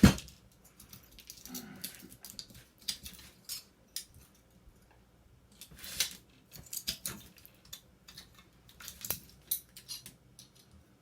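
Irregular clicks, scrapes and light metal taps of hand tools working a small transformer, prying off its copper band. A sharp knock right at the start is the loudest sound.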